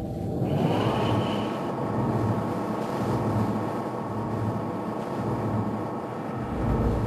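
Starship turbolift hum: a drone that rises in pitch over about the first second as the lift gets under way, then holds steady with a rushing haze beneath it. A brief high tone sounds about half a second in.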